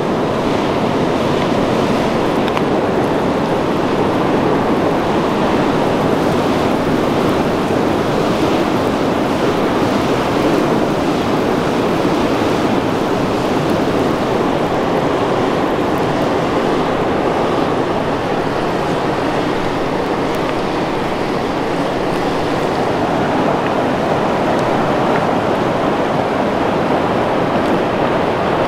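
Steady rushing of flowing water, an even unbroken wash of sound.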